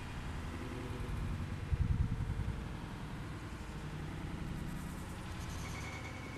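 Low, steady rumble of city road traffic, swelling briefly about two seconds in.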